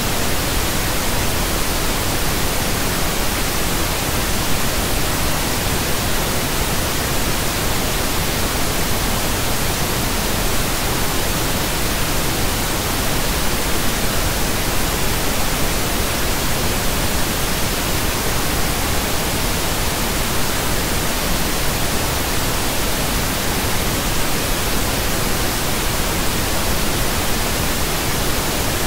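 Pink noise: a steady, even hiss spread across the whole frequency range, unchanging throughout.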